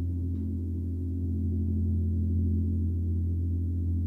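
Gong sustaining a deep, steady drone with many overlapping low tones, no new strike heard.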